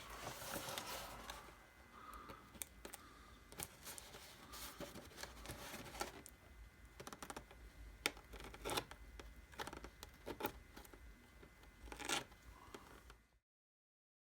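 Cardboard box being opened by hand: tape tearing and cardboard scraping, with scattered sharp clicks and crinkles. The sound cuts off abruptly near the end.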